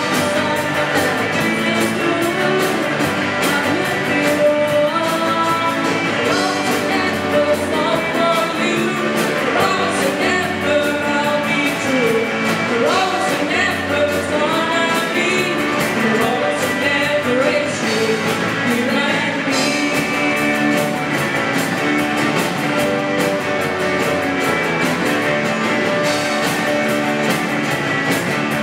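Rock song with a singing voice over a full band and a steady drum beat.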